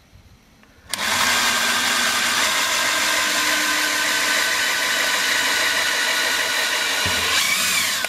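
Power drill running a 3/16-inch bit into the pressure-switch port of a furnace inducer housing. It starts abruptly about a second in, runs steadily, and rises briefly in pitch near the end. The port is being drilled out so that water droplets cannot block the pressure-switch hose, the cause of the code 31 pressure-switch fault.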